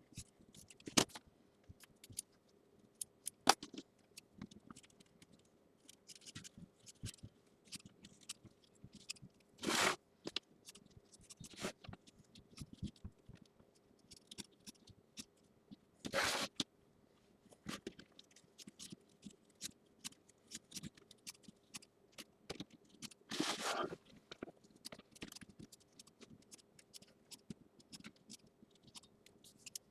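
Scissors snipping through batting in many short, irregular cuts, trimming excess batting around the tack-down stitching in an embroidery hoop. A few longer scraping rustles come about ten, sixteen and twenty-three seconds in.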